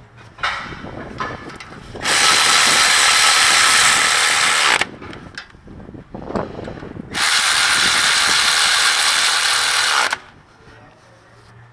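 Milwaukee cordless electric ratchet with an 18 mm socket running down bolts on the rear wheel hub, in two steady runs of about three seconds each, with clicks and handling noise between them.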